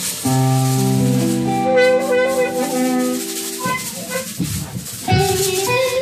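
Live band jam: an electric guitar through an Axe-Fx II modeller holds sustained chords, then plays shorter notes, while a maraca is shaken in a steady rhythm.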